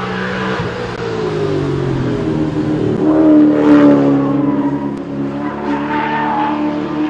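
A VT Holden Commodore race car's engine runs hard as the car drives past at speed. The engine note falls over the first couple of seconds, and the sound is loudest as the car goes by about three to four seconds in, then pulls away.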